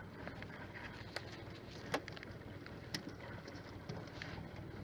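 Small fishing boat's engine idling with a steady low hum, with three sharp knocks about one, two and three seconds in, the middle one the loudest.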